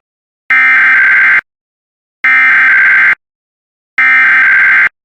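Emergency Alert System SAME header: three identical bursts of loud, buzzy digital data tones, each just under a second long with a short silence between. This is the coded header that opens an EAS alert, here a Required Weekly Test.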